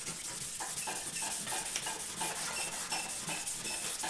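A red Scotch-Brite pad scrubbed by hand back and forth over a powder-coated aluminum license plate blank, in quick even strokes about three a second. This is the scuffing that takes off the glossy finish so that paint will bond.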